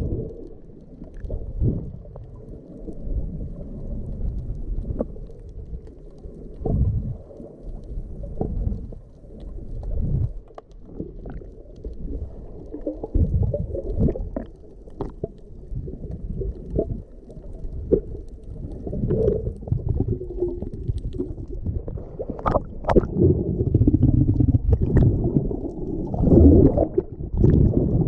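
Muffled underwater sound through a GoPro's waterproof housing: low rumbling surges of moving water as a diver swims, with scattered clicks and pops. It grows louder near the end as bubbles stream past the swimmer's arm.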